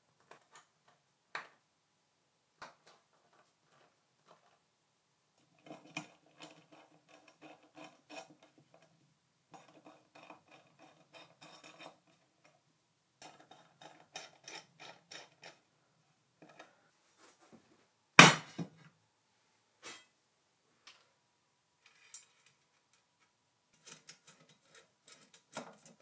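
Precision screwdriver driving small machine screws into aluminium extrusion joining plates: scattered light metallic clicks and short runs of quick ticking as the screws are turned, with one louder sharp metal clank about two-thirds of the way through.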